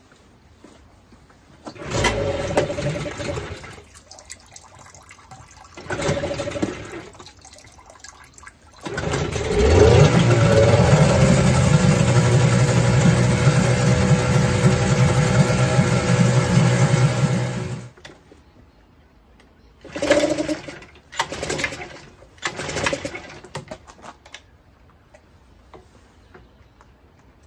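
Tohatsu 8 hp outboard pull-started: two short attempts, then it catches and runs fast and steady for about eight seconds before cutting out suddenly. A few short bursts follow. With its cheap replacement carburetor the motor will only run flat out and dies when backed off.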